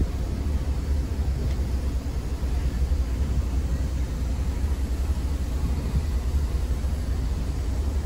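Steady low rumble of a car driving slowly, heard from inside its cabin.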